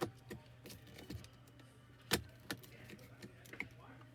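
Plastic interior trim of a car's centre console being handled and lined up: a scattered series of light clicks and taps, the loudest a little after two seconds in.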